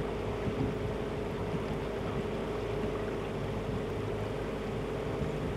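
Small boat's outboard motor running at a steady cruising speed, a constant hum with water and wind noise from the moving hull.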